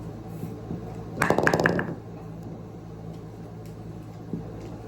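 Synthetic Twister bowling pin with a resin core being struck, giving a short clatter of quick knocks with a ringing tone about a second in. It is the pin's typical sound.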